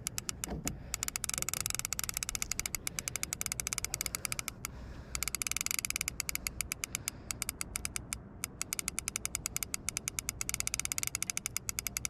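Fishing reel's clicker ratcheting rapidly as line is pulled off the spool by a hooked great white shark swimming away. The ticking pauses briefly about four and a half seconds in, then resumes faster.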